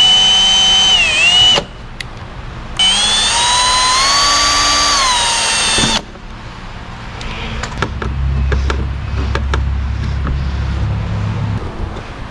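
Cordless drill running in two bursts, a high motor whine that sags briefly under load in the first and climbs in pitch in the second, then a quieter stretch of small clicks and handling.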